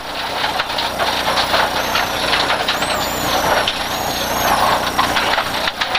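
Rally car engine running hard from inside the car on a loose forest stage, its pitch rising and falling with the revs, over a steady rattle and clatter of gravel.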